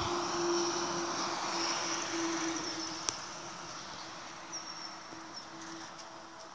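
A steady engine hum that slowly fades, with a single sharp click about three seconds in.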